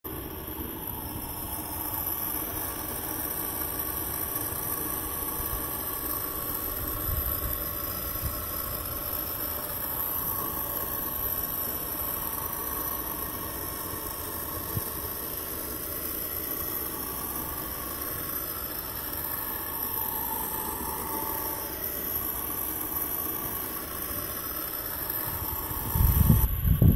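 Motor of a radio-controlled model round tug running steadily under load, pulling against its tow line, a steady hum. About a second before the end, wind buffets the microphone with a loud low rumble.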